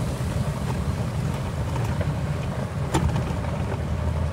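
Steady low rumble of a vehicle rolling along a paved path, with one sharp click about three seconds in.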